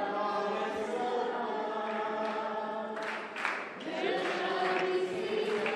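Several voices singing together in long held notes, pausing briefly about three seconds in before the singing carries on.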